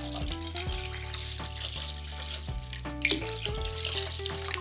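Water pouring from a plastic measuring jug into a glass bowl of red gouache paint, splashing into the paint, with a single knock about three seconds in.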